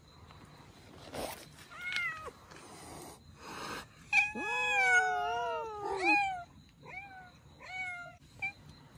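Cats yowling at each other in a standoff: a short call about two seconds in, then a long drawn-out yowl of about two seconds from about four seconds in, the loudest part, followed by two shorter calls.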